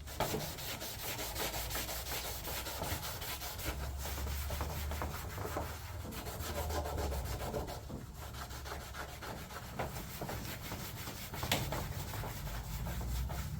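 Rapid hand scrubbing with a green Scotch-Brite pad on an aluminum race-car body panel, a quick steady back-and-forth scraping. The pad is working off tire marks from where the panel was hit.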